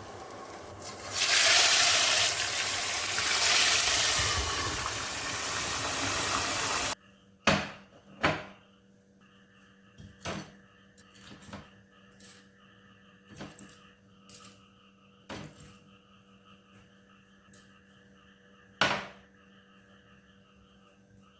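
Water running hard for about six seconds, cut off abruptly. Then scattered sharp clinks and knocks of dishes and kitchenware, about a dozen, over a faint steady hum.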